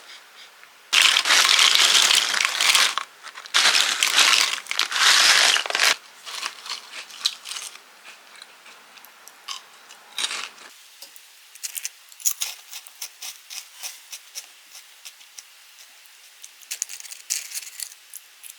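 Packaging being handled: two long, loud bursts of crinkling and tearing in the first six seconds, a shorter one about ten seconds in, then light scattered clicks and rustles.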